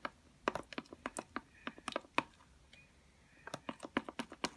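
A run of sharp, irregular clicks and taps in two clusters, with a short lull in the middle.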